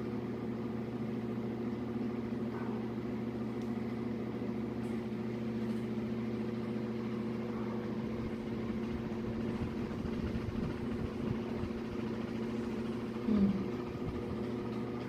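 A steady low machine hum, like a motor running, with a short louder sound about thirteen seconds in.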